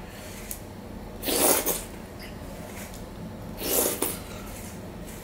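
Hand squishing and mixing mashed potato with dal on a steel plate. Two short hissing rushes, about a second and a half in and again near four seconds, are the loudest sounds.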